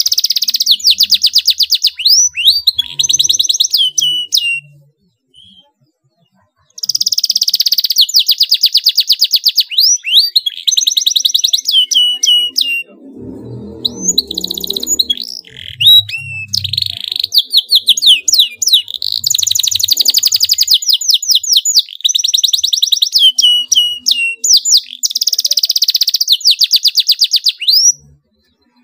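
Domestic canary singing hard in long, fast rolls of rapidly repeated high notes broken by quick sweeping notes, pausing for about two seconds around five seconds in. A brief low rumble sounds under the song about halfway through.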